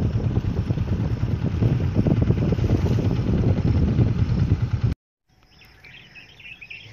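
Wind buffeting the microphone, a heavy, uneven low rumble that cuts off suddenly about five seconds in. After the cut, a much quieter outdoor background with faint high chirping.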